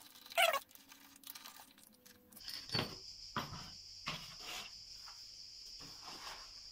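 Scattered clicks and light knocks as the pinion cover of a Yamaha T-Max 530's belt final drive is worked loose and lifted off by hand. The sharpest click comes just under half a second in. A steady high-pitched hiss starts about two and a half seconds in and runs underneath.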